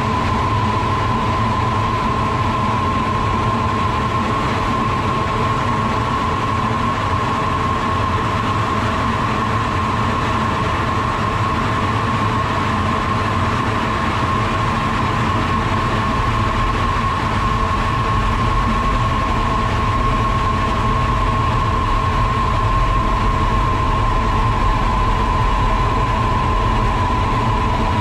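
Cockpit noise of a two-seat Lockheed F-104 Starfighter in flight: a steady rush of air and jet engine, with a constant high whine over it.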